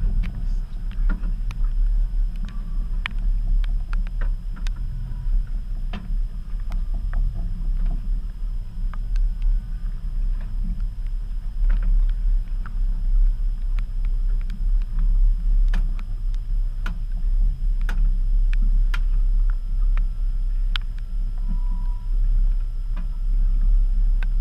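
Steady low rumble aboard an aluminium fishing boat at sea, with scattered short knocks and clicks from gear being handled on deck.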